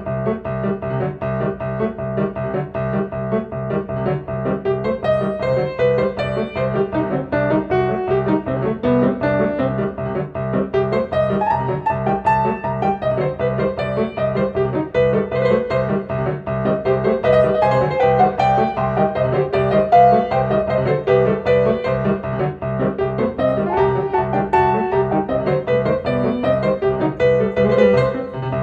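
Background music led by piano, with a steady pulse of notes under a moving melody.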